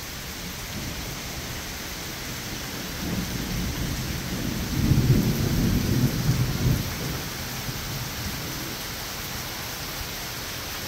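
Steady heavy rain falling on a wet deck and paved driveway, with a low rolling rumble of thunder that builds a few seconds in, is loudest around the middle, and fades away.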